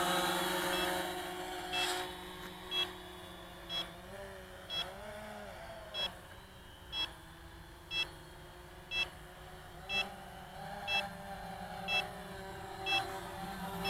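A short, high electronic beep repeating about once a second, a dozen times, from the radio-controlled quadcopter setup, over the steady hum of the Quanum Nova quadcopter's electric motors. The motor hum fades in the first couple of seconds, shifts in pitch briefly around the middle, and grows louder again near the end.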